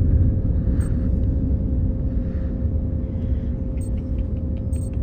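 Steady low rumble of a drop pod's cabin in flight, with a constant hum over it and a few short, high beeps.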